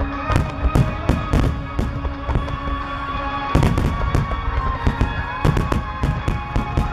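Aerial fireworks bursting in quick succession, several bangs a second, with music playing underneath.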